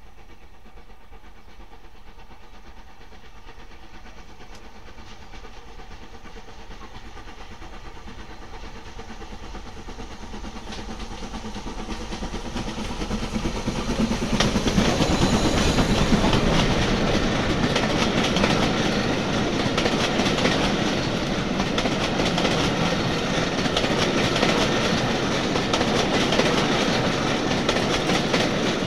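LMS Stanier 8F 2-8-0 steam locomotive No. 48305 hauling a train of coaches approaches, growing steadily louder, and passes close by about halfway through. The coaches then roll past with a steady clickety-clack of wheels on the track.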